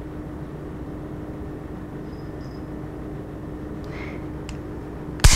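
Steady low room hum with a few faint handling ticks. Near the end comes one sharp metallic click from a Beretta Model 1923 pistol being field-stripped, as a part catches on the magazine.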